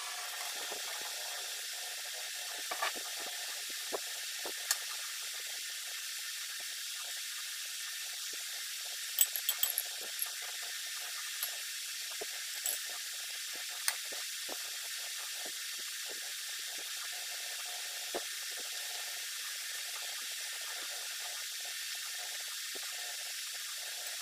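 Metal spoon and fork clinking and scraping against ceramic plates as food is served, in scattered short clicks with a quick run of them about nine seconds in, over a steady background hiss.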